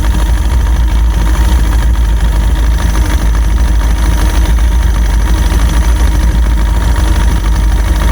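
Small boat's outboard motor running steadily.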